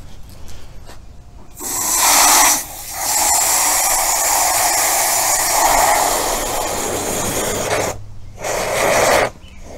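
Water hissing out of a hose nozzle in spurts: a short burst, then about five seconds of steady spraying, then another short burst near the end.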